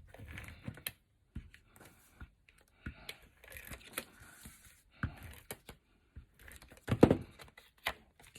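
Cardstock and designer paper being handled and set in place on a tabletop: paper rustling and light taps and clicks, with one louder knock about seven seconds in.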